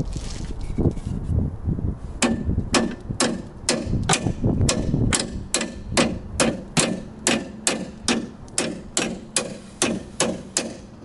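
Hammer striking the steel front crossmember of a VAZ-2107, tapping it to knock it loose once its bolts are out. After some duller knocks, about twenty sharp, ringing metal-on-metal strikes come two to three a second, starting about two seconds in.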